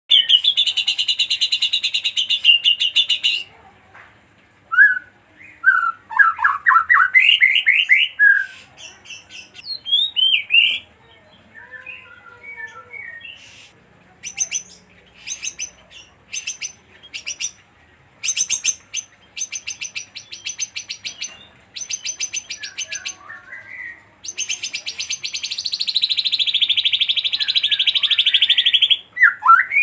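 White-rumped shama (murai batu) in full song: a loud, varied song of long fast trills, slurred whistled notes and runs of rapid repeated notes, with short pauses between phrases. It opens and nearly closes with a long high trill.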